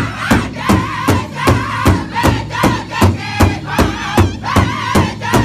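Powwow drum group singing in high-pitched unison over a steady, even beat struck together on one large powwow drum, about two and a half beats a second.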